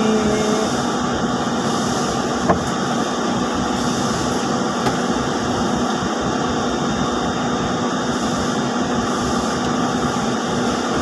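Steady drone of running machinery, with a few faint steady tones in it and one sharp click about two and a half seconds in.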